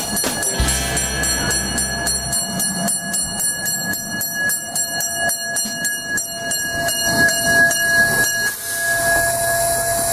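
Miniature park-railway steam locomotive rolling slowly past at a station platform. There is a run of regular clicks over steady ringing tones, and a hiss of steam in the last second or so before the sound cuts off.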